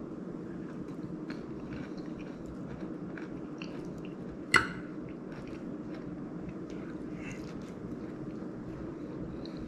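A man chewing food, with scattered small clicks of a metal fork on a ceramic plate over a steady low hum. One sharp clink about halfway through.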